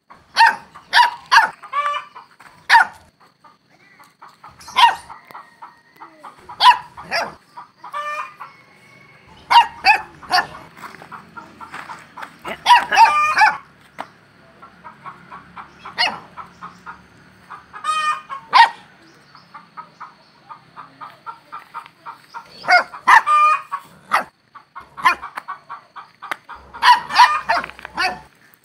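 A puppy yelping and whining in short high-pitched calls, over and over in little clusters, as it jumps up begging for attention.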